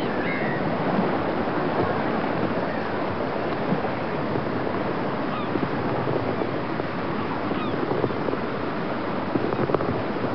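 Steady rush of sea waves and surf, with a few faint short high calls rising above it.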